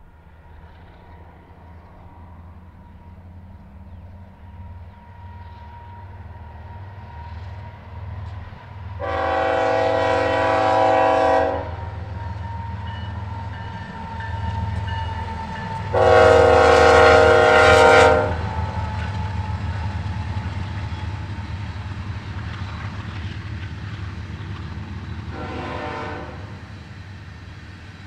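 BNSF diesel freight locomotives rumbling as they approach and pass, sounding a multi-note air horn: two long blasts and a short one, the opening of the grade-crossing horn signal.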